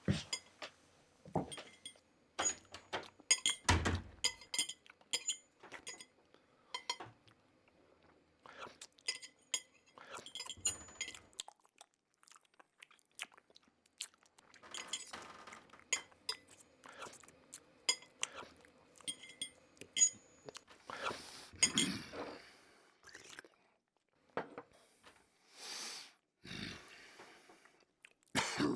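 Foley of people at a meal: crockery and cutlery clinking with a short ringing after each knock, then chewing with scraping and rustling from about halfway through.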